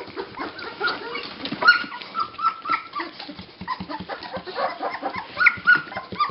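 Newborn puppies, about two weeks old, squeaking and whimpering in short high calls. There is a quick run of them about two seconds in and more near the end, over many small clicks and shuffling sounds.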